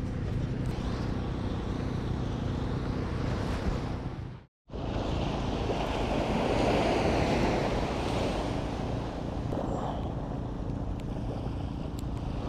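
Small sea waves washing onto the shore, with wind rumbling on the microphone. The sound cuts out for a moment a little before halfway, and a wave wash swells louder about six seconds in.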